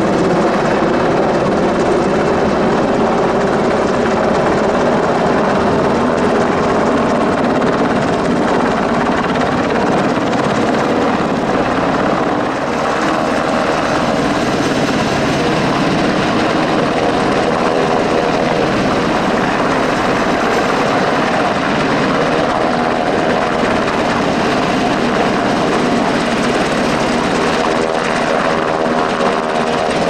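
Sikorsky UH-60A Black Hawk helicopter hovering close by, its main and tail rotors and twin turboshaft engines running loud and steady.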